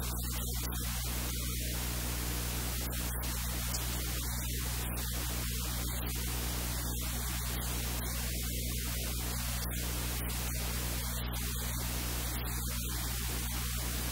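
Steady hiss over a low electrical hum at an even level, with no distinct sound events.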